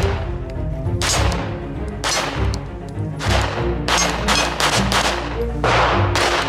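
Background music with a heavy bass line, mixed with a series of sharp pistol shots that come closer together in the second half.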